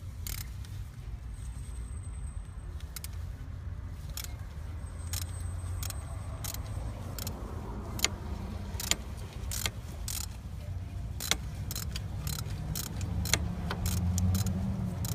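3/8-inch-drive ratchet on a flexible extension and spark plug socket being worked to loosen a spark plug on a 318 V8: scattered, irregular metallic clicks and clinks from the ratchet and tools. A steady low rumble runs underneath.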